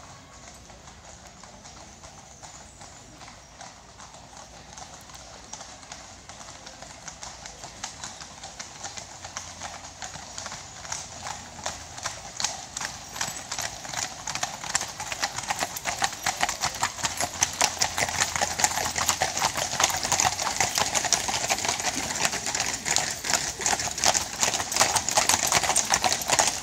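Many horses' hooves clip-clopping on an asphalt road: a column of ridden horses and carriage horses approaching, the hoofbeats faint at first and growing steadily louder and denser until they pass close by near the end.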